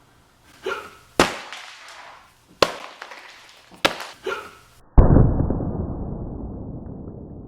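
A series of sharp explosive bangs, about a second and a half apart, with softer pops between them. About five seconds in comes a bigger blast, followed by a long, slowly fading rumble.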